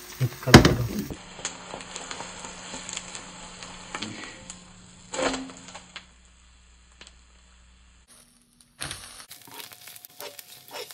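Beaten egg frying in a HexClad hybrid stainless-steel pan: a faint sizzle with scattered crackles, after a sharp knock about half a second in. Near the end a spatula taps and scrapes across the pan.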